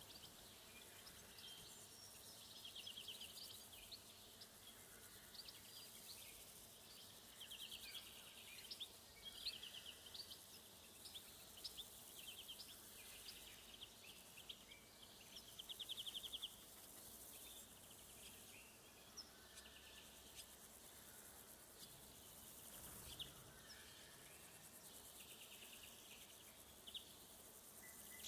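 Faint summer woodland ambience: insects chirping in short buzzy trills every few seconds over a steady high insect hiss, with scattered brief bird chirps.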